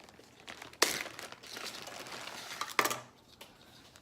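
Packaging of fishing tackle crinkling as it is handled. There is a sharp crackle about a second in and another near three seconds, then it dies down.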